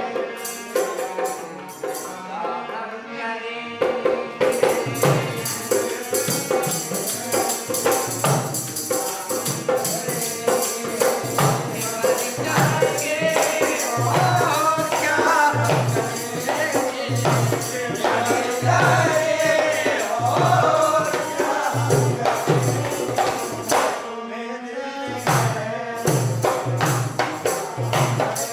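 Live Hindi song accompaniment: a harmonium opens, then a dholak drum comes in about four seconds in with a steady beat under bright jingling percussion. A singer's voice carries the melody through the middle.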